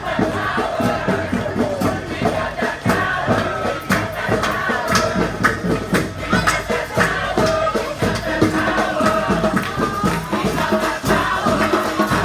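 Community brass street band playing a lively tune, with horns carrying the melody over drums.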